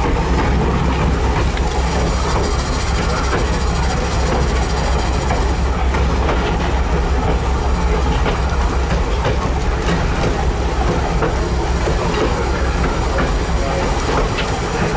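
Railroad car rolling along the track, heard from aboard the train: a steady low rumble with wheels clicking over rail joints.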